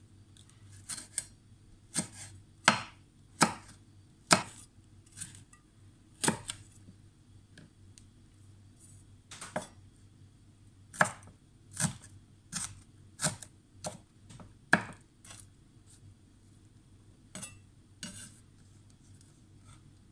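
Chef's knife slicing and chopping a red cayenne pepper on a wooden cutting board: a run of irregular sharp taps as the blade meets the board, growing sparse in the last few seconds.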